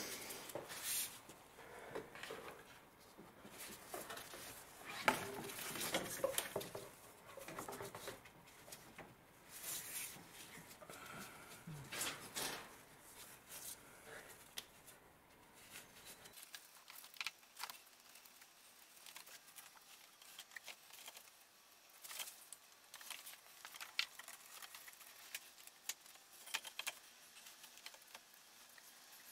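Gloved hands working a new ribbed serpentine belt around the engine's pulleys: faint, irregular clicks, rubs and rustles.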